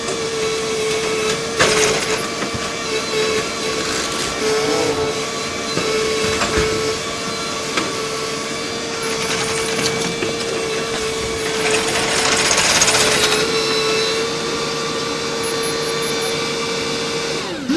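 Kobelco SK220LC hydraulic excavator on a demolition site, its engine holding a steady high-pitched drone over a continuous hiss of spraying water, with louder rushes of noise about two seconds in and again around twelve seconds in.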